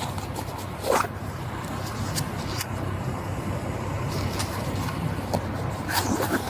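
A vehicle idling with a steady low hum, with a few short knocks: one about a second in and two near the end.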